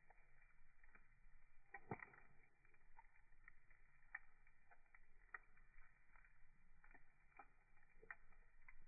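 Wood fire crackling faintly, with irregular pops and one louder crack about two seconds in.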